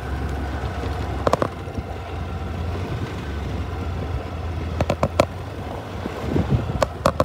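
Wind buffeting a phone's microphone: a steady low rumble, with a few short sharp clicks about a second in, around the middle, and near the end.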